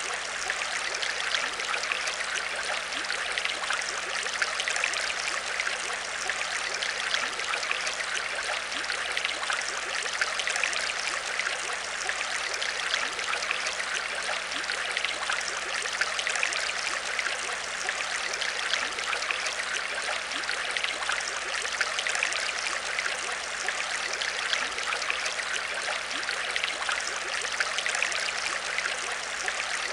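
Aquarium water trickling and bubbling steadily, a continuous dense patter of small splashes, over a faint steady low hum.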